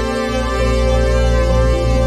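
Background music: sustained synthesizer chords over steady low bass notes.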